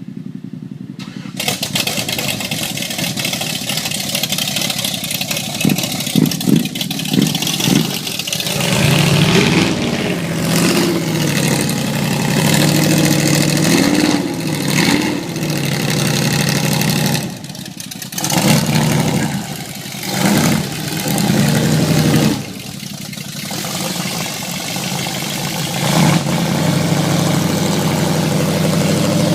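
Off-road vehicle engine revved repeatedly, its pitch swinging up and down in throttle bursts and falling back toward idle several times, then running steadily near the end.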